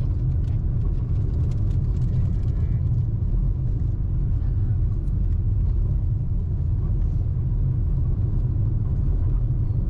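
Car driving along: a steady low rumble of road and engine noise.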